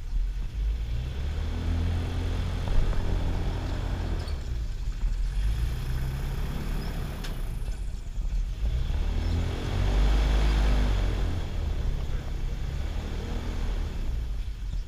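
A motor engine running, its low hum rising and falling in pitch and swelling louder twice, first at about two seconds and again about ten seconds in.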